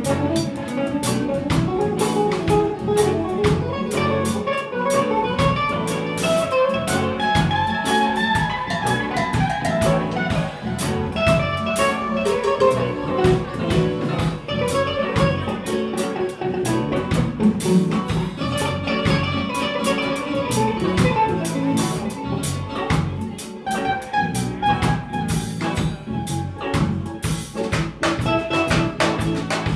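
Live band playing: electric guitars, bass, keyboards and a drum kit, with melodic lines moving over a steady beat, recorded from the audience in a bar room.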